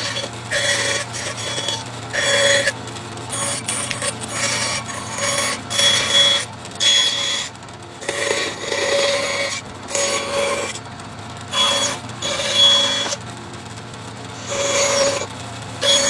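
Hand saw cutting through wood in short, irregular strokes about once a second, some strokes with a faint ringing note from the blade.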